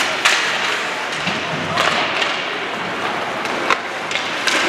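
About four sharp thuds spread over a few seconds, over steady background noise with the echo of a large hall.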